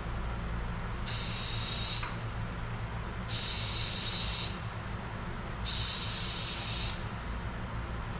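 Compressed air hissing from an air-compressor chuck into a tubeless bike tire through its presta valve, in three bursts of about a second each, while the tire is inflated toward about 25 psi. A steady low hum runs underneath.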